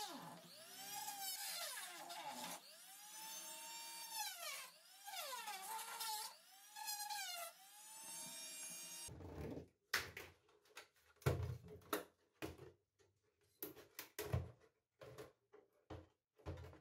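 A run of squeaks that rise and fall in pitch for about nine seconds, then scattered clicks and knocks as the plastic tail light housing and its red lens are handled and pulled apart.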